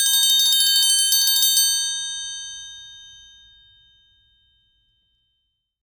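Triangle played in a rapid roll of quick strokes, then left to ring, its bright shimmer fading away over about three seconds.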